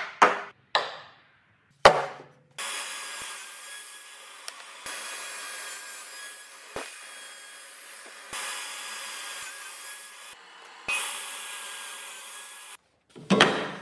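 Wooden blocks knocked down onto a workbench a few times. Then a power saw's spinning blade cuts box-joint notches into a softwood block in several passes, a steady noisy cutting sound that stops and restarts a few times. A couple more sharp knocks come near the end.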